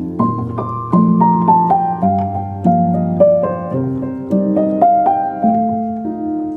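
Background piano music: a gentle melody of single notes over slow bass notes, a new note about every half second.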